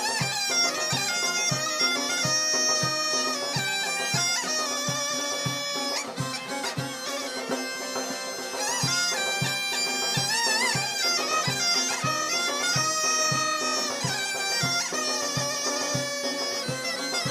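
Instrumental Turkish Yörük folk music: a sipsi (small reed pipe) plays the buzzy, heavily ornamented melody, with a bowed kabak kemane and plucked bağlamas. A frame drum keeps a steady beat underneath.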